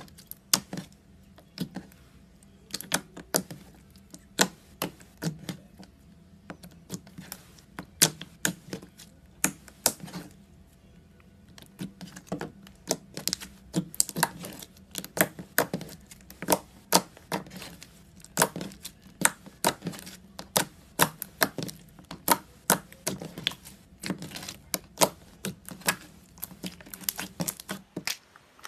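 Hands kneading and squeezing fluffy slime, its trapped air pockets popping in quick, irregular clicks and crackles.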